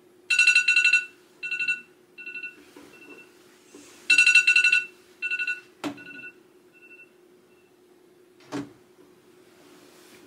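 Electronic alarm tone going off: a bright chime sounds twice, each time a loud burst followed by softer, fading repeats, the wake-up alarm of someone still asleep. A sharp click comes about six seconds in and a thump a little later.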